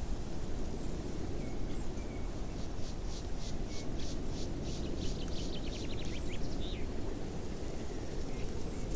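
Steady low outdoor rumble with a bird in the background singing a string of quick repeated high notes from about three to seven seconds in, the notes coming faster near the end.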